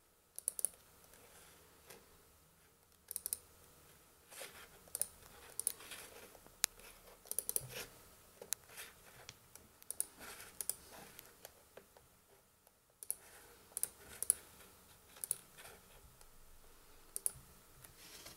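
Sharp clicks from a Samsung Ativ Book 2 laptop being operated, scattered irregularly, several in quick pairs like double-clicks.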